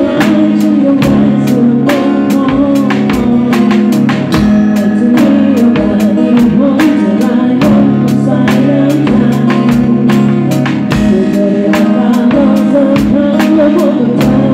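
Live band playing, with a drum kit struck with sticks keeping a steady beat of drum hits and cymbal strokes over sustained bass and chords.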